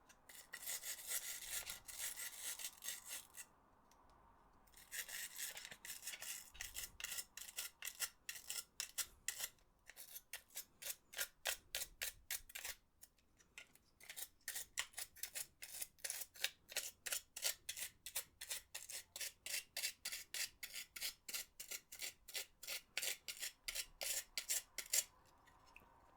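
Rapid back-and-forth scrubbing strokes on a plastic PS4 controller part, a dense scratchy rubbing at first, then after a short pause settling into distinct strokes at about three or four a second that stop shortly before the end.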